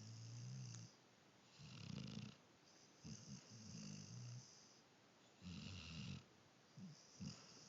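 Faint snoring in a slow, even rhythm: about four snoring breaths, each lasting roughly half a second to a second and a half, with a low rumble and a hissing, wheezy edge.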